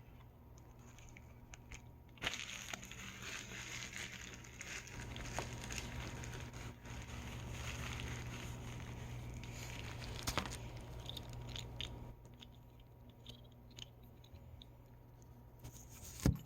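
Plastic toy packaging crinkling and rustling as a blind pack is torn open and unwrapped, busiest from about two seconds in until about twelve seconds. Quieter handling ticks follow, then a sharp knock near the end.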